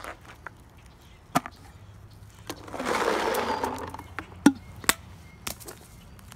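Paintballs poured from a pod into a hopper, rattling for about a second and a half partway through. Around it come a few sharp clicks and snaps, the loudest a little after the pour.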